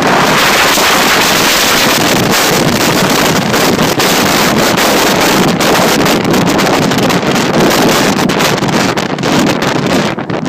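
Jet blast from a twin-engine airliner at takeoff thrust: loud engine noise and blasting air battering the microphone, with many bumps as the camera is tossed about. It eases slightly near the end.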